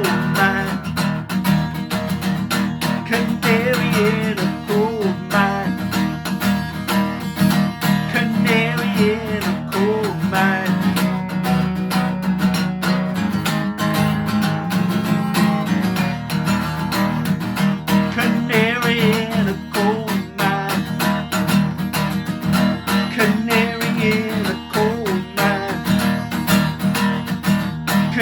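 Acoustic guitar strummed steadily through an instrumental break, with a wavering melody line above the chords.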